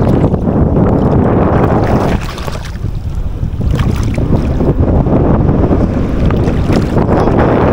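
Wind buffeting the microphone: a loud, rough low rumble that eases for about a second just after two seconds in, then picks up again.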